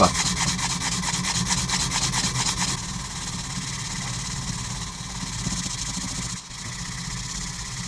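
Coarse P120 sandpaper rubbed by hand over the face of a steel axe head in rapid back-and-forth strokes, a dry rasping scrape. The strokes are fast and sharply rhythmic at first, then after about three seconds turn smoother and a little quieter.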